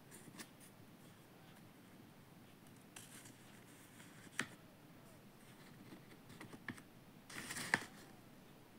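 Faint handling noises: scattered small clicks, a sharper click about four and a half seconds in, and a short rustle ending in a click near the end.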